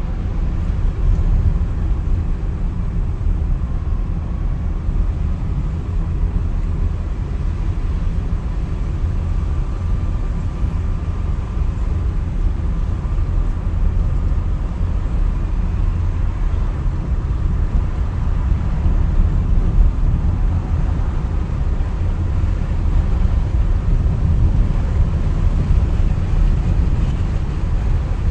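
Renault Twingo GT being driven: a steady low rumble of engine and road noise.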